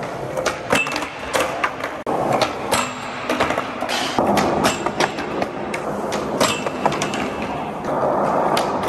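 Skateboard wheels rolling on a concrete floor, broken by many sharp clacks of the board: tail pops, landings and board hits.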